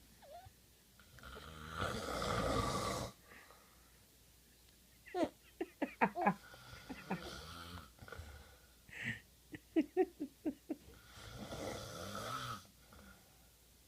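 A man snoring: two long, rattling snores about ten seconds apart. In between comes a run of short, high, gliding vocal sounds from a baby, louder than the snores.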